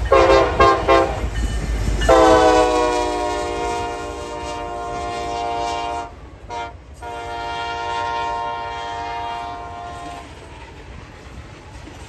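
Diesel locomotive air horn sounding a salute: a few quick short toots, a long blast, a brief toot, then another long blast. The train's rolling noise is heard under it and after it stops near the end.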